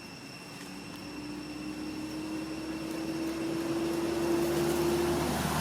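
A motor engine drawing nearer, growing steadily louder, its tone rising slowly in pitch.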